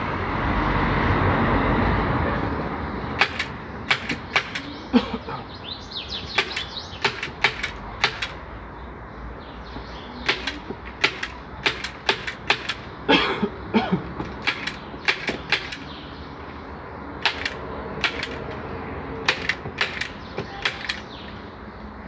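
Handheld staple gun firing staples into the wooden frame of a sofa base as upholstery fabric is fixed along its edges: many sharp clicks at an uneven pace, often in quick pairs or short runs. A rustling noise comes first, for about two seconds.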